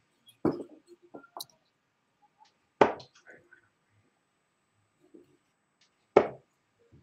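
Three sharp thuds, about two and three seconds apart, the last two the loudest.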